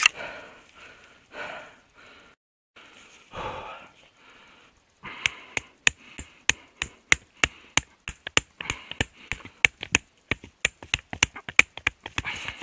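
Pocket knife blade hacking at a sapling's trunk: a fast, uneven run of sharp chopping knocks, about three or four a second, starting about five seconds in. Before that, a couple of heavy breaths.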